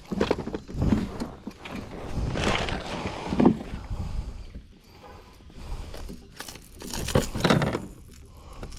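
Irregular rustling and knocking handling noise, with several sudden louder bursts, as a freshly caught bass is handled and unhooked.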